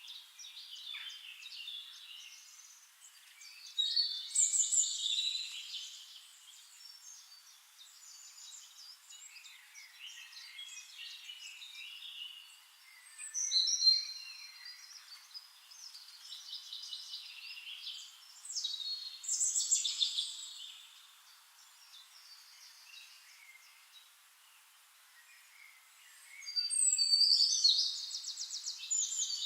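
Several songbirds singing and chirping, with louder song phrases coming every few seconds and a fast, rattling trill near the end.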